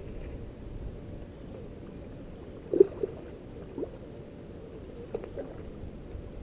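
Hooked carp, a koi–common carp hybrid, splashing at the water's surface as it is played on the rod, with a few short louder splashes about three, four and five seconds in.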